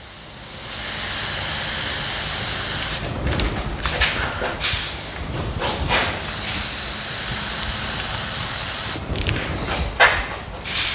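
Compressed-air paint spray gun hissing as it sprays paint. It runs steadily for a couple of seconds, then in shorter bursts with brief breaks, then steadily again, with two short sharp blasts near the end.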